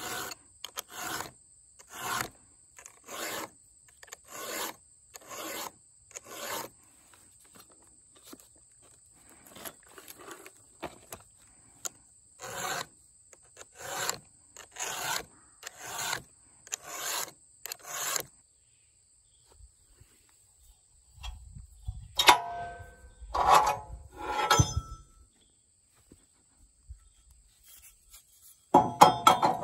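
A round file sharpening a chainsaw chain by hand, one rasping stroke about every second. Near the end come a few louder metallic clanks.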